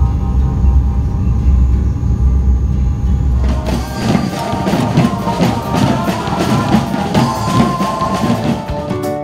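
A steady low rumble of a boat under way, engine and wind on the water, for the first few seconds. About three and a half seconds in it cuts to upbeat music with a fast, busy drum beat.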